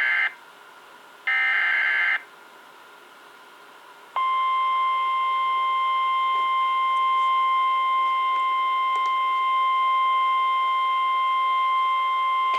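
NOAA Weather Radio emergency alert: the end of one SAME digital header burst, then a second burst of harsh data screech about a second and a half in. About four seconds in, the steady single-pitch 1050 Hz warning alarm tone starts and holds.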